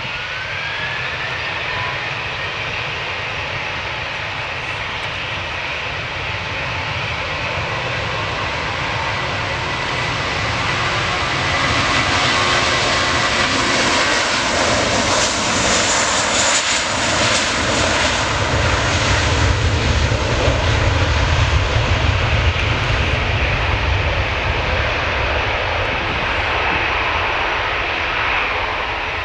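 Twin-engine Lufthansa Airbus A320-family jet at takeoff power on its takeoff roll. The engine whine rises in pitch at the start, and the jet noise grows loudest with a deep rumble as the aircraft passes and heads away down the runway.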